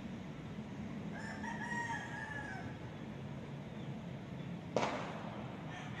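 A rooster crowing once in the distance, a single cock-a-doodle-doo of about a second and a half, over a steady low rumble. Near the end a single sharp knock, the loudest sound.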